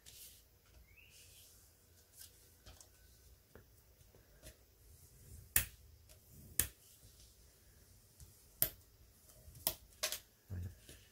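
Sharp clicks and taps of thick cardstock and a bone folder (plioir) being handled on a table while creasing and flattening folds. There are a few faint taps in the first half and half a dozen louder, sharper clicks in the second half.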